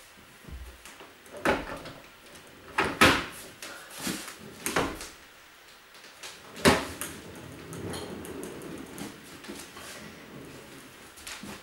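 Boxes and crates being shifted about: several sharp knocks and bumps, loudest about three seconds in and again near seven seconds, with softer shuffling and scraping between.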